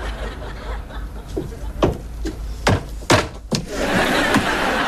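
A handful of sharp knocks and thumps, about five spread over two or three seconds, like footsteps and a door on a sitcom set, with faint studio-audience chuckling.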